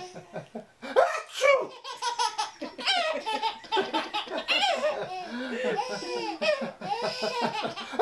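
A baby laughing hard, over and over, with adults laughing along.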